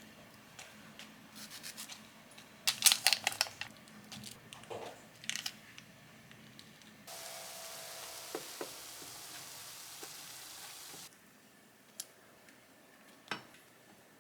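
Kitchen handling sounds: scattered rustles and clicks, with a loud cluster of sharp clicks about three seconds in. A steady hiss starts abruptly about halfway through, runs for about four seconds, and cuts off suddenly.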